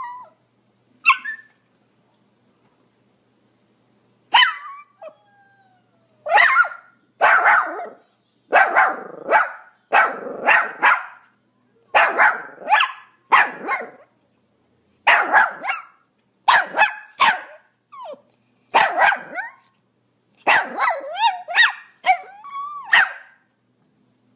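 Pomeranian barking: a few short high yips in the first seconds, then a long run of sharp, high-pitched barks coming in quick twos and threes with short pauses between.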